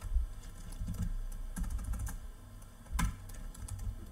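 Typing on a computer keyboard: irregular keystrokes, with one louder key press about three seconds in.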